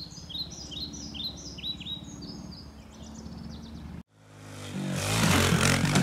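A songbird sings quick repeated chirping phrases over the faint hum of a distant pit bike engine. About four seconds in, the sound cuts out briefly, then a pit bike passes close by, its small engine revving loudly and building to a peak near the end.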